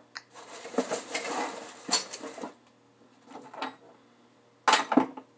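Tools and parts being handled on a cluttered workbench: a rustle of about two seconds with small metal clicks, a few soft knocks, then a sharp metal clatter near the end.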